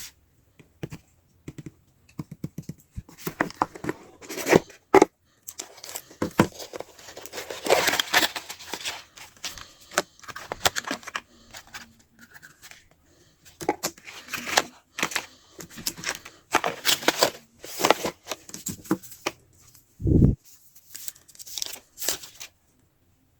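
Smartphone retail box being unpacked by hand: plastic wrap and seals tearing, packaging crinkling and scraping, with many small clicks and taps. A brief low buzz sounds about twenty seconds in.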